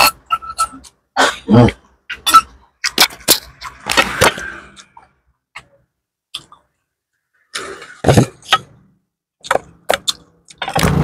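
Close-up eating sounds of a person eating fried gourami with rice and sambal: irregular wet chewing and lip-smacking clicks, with a metal spoon scraping and tapping in the stone sambal mortar near the start.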